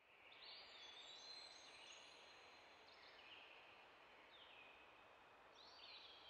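Near silence with faint, high whistling tones that overlap and glide slightly, each lasting about a second.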